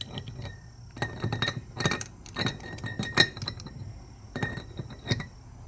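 Small metal carburetor parts and glass containers clinking as they are handled: a string of separate sharp clinks, several with a brief ring.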